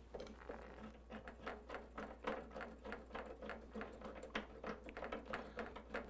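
Faint, irregular small clicks and taps as a hose's metal coupling is unscrewed and pulled off the brass hot-side service valve of a tankless water heater.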